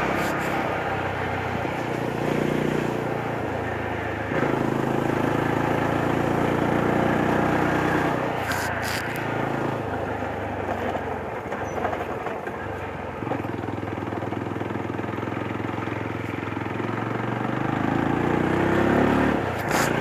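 Yezdi Roadster's 334 cc single-cylinder engine running on the move. Its pitch steps up and down as the throttle and gears change, and it rises steadily as the bike accelerates near the end.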